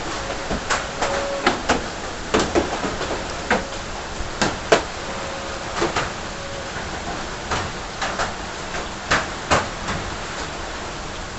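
Hailstorm: irregular sharp knocks of individual hailstones striking hard surfaces, over a steady hiss of falling rain and ice.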